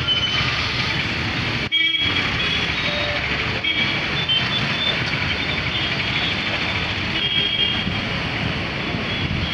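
Busy road traffic: motorbikes, scooters, auto-rickshaws and a bus running past, with short horn toots now and then.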